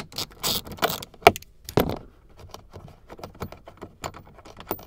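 Ratchet with a 10 mm socket clicking as it backs out a dash trim bolt, in runs of quick ticks, among a few sharper metal clinks and handling noises in the first couple of seconds.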